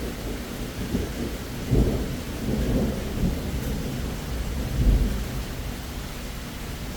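Thunder rumbling over steady rain, with two louder swells, the first just under two seconds in and the stronger one about five seconds in.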